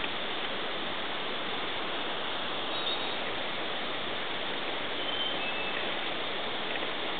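Steady rushing of a nearby river, an even hiss-like roar at constant level, with a few faint, short high whistles about three and five seconds in.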